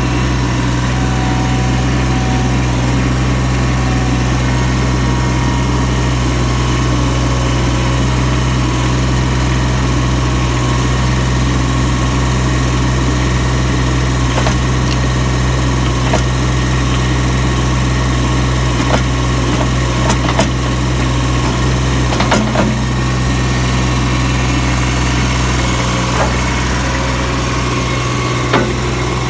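Ditch Witch stand-on mini skid steer's engine running steadily while its loader bucket moves soil, with a few short knocks about two-thirds of the way through.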